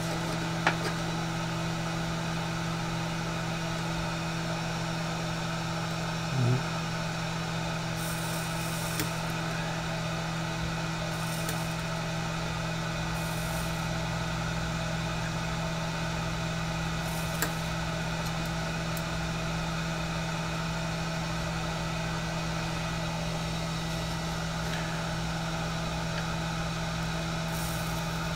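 Hot-air heat gun running steadily, its fan motor humming with a hiss of blown air, while it preheats a circuit board ahead of desoldering a surface-mount LED. A few faint clicks sound over it.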